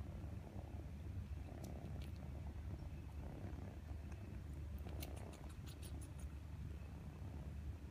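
Mother cat purring steadily while her kittens nurse. A short run of quick faint clicks comes about five seconds in.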